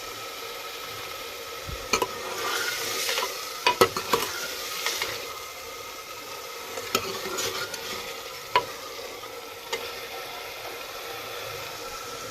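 Ground onion, tomato and spice masala sizzling in a pan while a spoon stirs it, with a few sharp clicks and scrapes of the spoon against the pan at irregular moments.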